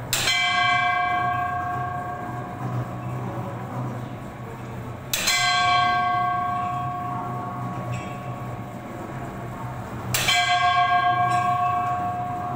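Small metal bell hung above a large Buddhist prayer wheel, struck three times about five seconds apart, each strike ringing on and slowly fading. The even spacing fits the striker on top of the turning wheel hitting the bell once each revolution.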